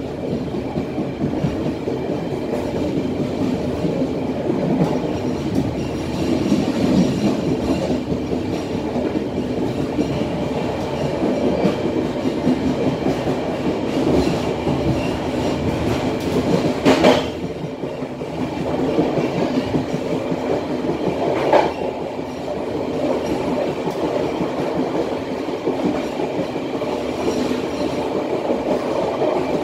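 Matarmaja passenger train heard from its rear car, running on the rails while picking up speed: a steady rumble and clickety-clack of the wheels. There are two sharper knocks a few seconds apart past the middle.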